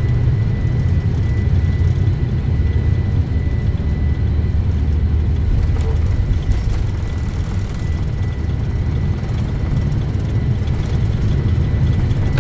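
Boeing 747-400 during takeoff: a steady, loud low rumble of engines and airflow, with a thin steady high tone above it.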